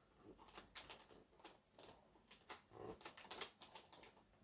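Faint rustling and crinkling of gift-wrapping paper being carefully pulled open by hand: an irregular scatter of soft crackles.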